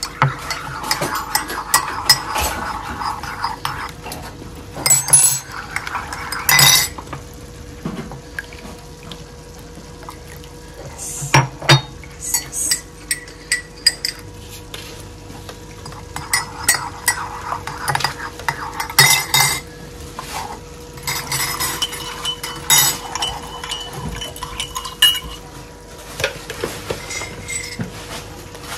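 A metal teaspoon clinking against ceramic mugs while sugar is stirred into coffee with milk. Sharp clinks are scattered throughout, with three spells of busier stirring: near the start, and twice past the middle.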